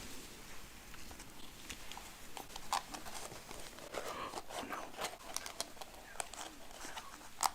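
Close-miked chewing of food: irregular wet clicks and crackles, with one sharper click near the end.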